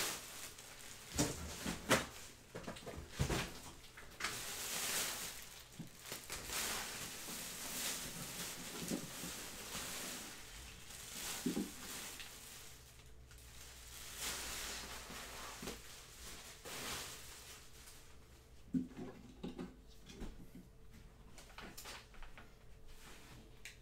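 Scattered clicks, taps and knocks with rustling, the sound of small objects being handled at a desk, densest in the first few seconds and again near the end.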